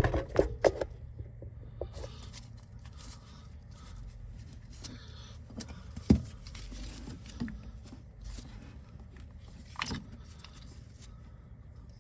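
Scattered metallic clicks, taps and light scraping from hands and tools working on a car's disc brake caliper, with a few sharp clicks in the first second and single knocks about six and ten seconds in.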